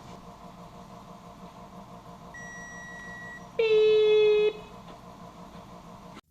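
A thin, steady high tone for about a second, followed by a much louder, lower, buzzy tone lasting about a second, over a steady background hum.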